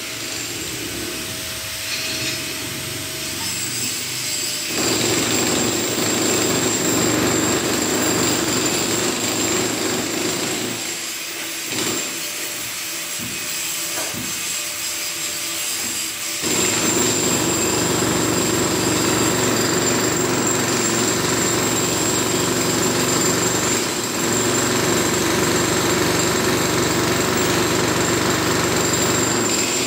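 Handheld angle grinder with a cut-off disc running and cutting steel bar, a steady high-pitched whine. A louder, lower machine sound joins about five seconds in, drops away around eleven seconds, and returns at about sixteen seconds.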